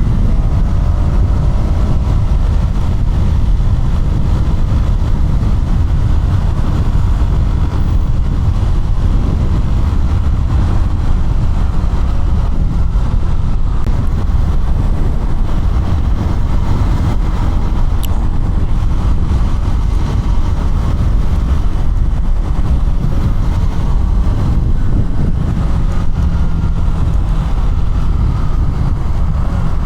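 KTM Duke 200's single-cylinder engine running while riding, heard under a loud, steady low rush of wind and road noise; the engine note climbs a little near the end.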